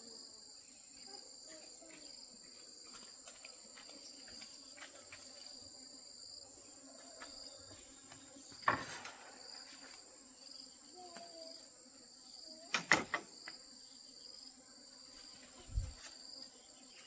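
Insects chirping steadily in the background, a continuous high whine with a chirp repeating over it. A sharp knock comes about halfway through, two or three more knocks a few seconds later, and a dull thump near the end.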